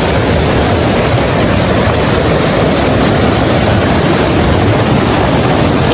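Mountain river rushing over boulders and a small cascade: a steady, loud rush of water.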